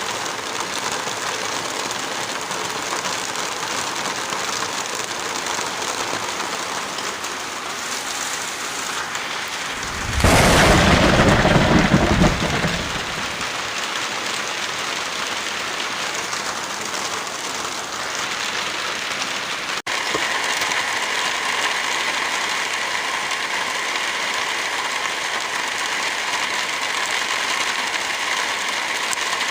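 Steady rain falling, with a loud clap of thunder about ten seconds in that lasts a couple of seconds. About twenty seconds in, the rain cuts off for an instant and comes back slightly louder and steadier.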